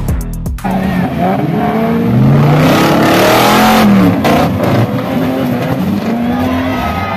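Off-road buggy's engine revving hard in repeated surges, its pitch rising and falling, as it climbs a steep mud slope with wheels spinning and throwing mud; the loudest stretch is around the middle.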